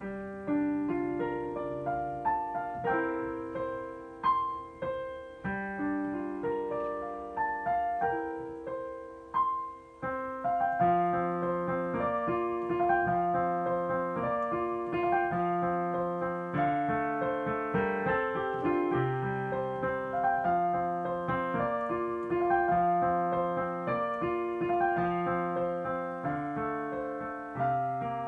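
Digital piano played solo: a melody over lower accompanying notes, with a brief pause about ten seconds in, after which the playing becomes fuller and more even.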